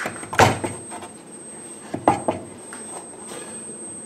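Heavy metal straightedges, cut from a machine vise, knocking against each other and on a wooden block as one is lifted off the other after an inked flatness check: a clunk about half a second in and a quick double clunk about two seconds in.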